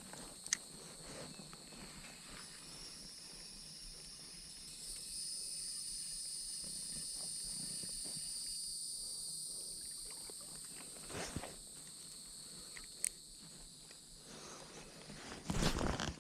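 Chorus of insects, a steady high-pitched buzzing in two bands that swells louder for several seconds in the middle. A few sharp clicks and short knocks come over it.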